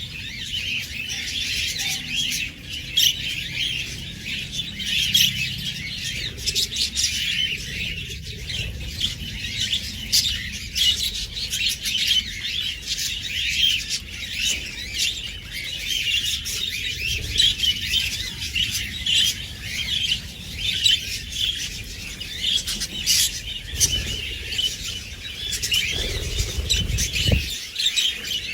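Budgies and lovebirds chirping and chattering, many quick calls overlapping without a break. A brief low rumble comes near the end.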